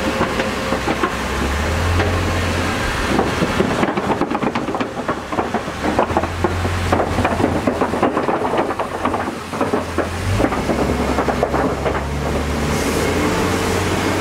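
Open-sided safari truck driving along, its engine running low and steady under a constant clatter of rattles and knocks from the moving vehicle.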